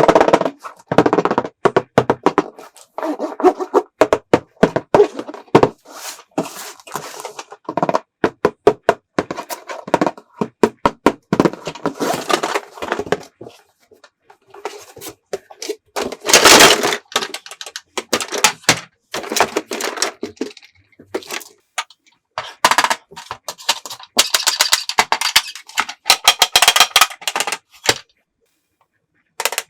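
Hard plastic toy pieces being handled, clicking and knocking in a rapid, uneven run of taps that stops shortly before the end.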